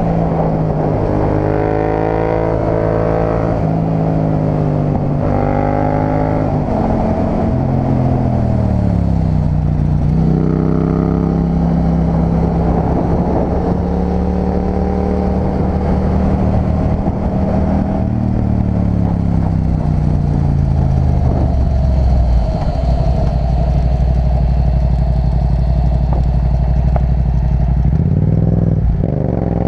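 Yamaha MT-07's 689 cc parallel-twin engine heard from the rider's seat under way. It revs up through several gears in the first seven seconds, dropping in pitch at each shift, then holds a steady cruise. It eases off to a lower steady pitch about two-thirds of the way in and briefly dips and picks up again near the end.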